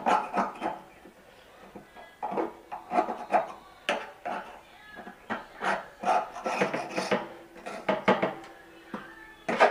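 Repeated rubbing and scraping strokes in irregular bursts with short pauses, like a brush or scraper working grime off washing machine parts. A denser, louder run of strokes starts near the end.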